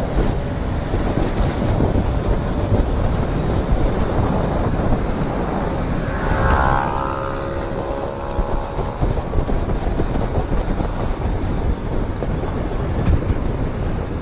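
Wind buffeting the microphone over a vehicle's engine and road noise while on the move. A brief pitched whine with several tones rises through the roar about six seconds in.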